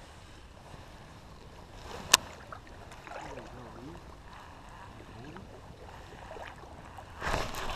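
Low river-water ambience with a single sharp click about two seconds in; near the end a Lew's Speed Spool baitcasting reel starts being cranked, a fast, even mechanical whir of the retrieve.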